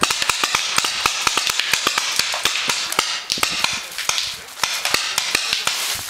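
Paintball markers firing in rapid strings of sharp pops, several shots a second, with no let-up.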